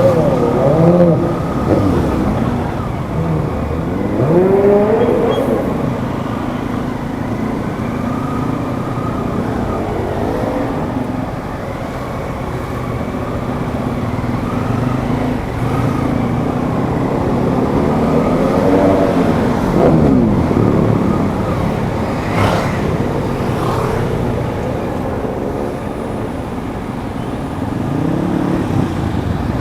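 Suzuki GSX-8S's 776 cc parallel-twin engine under way, its pitch rising and falling again and again as the rider opens and closes the throttle through the gears, over a steady rush of wind and road noise.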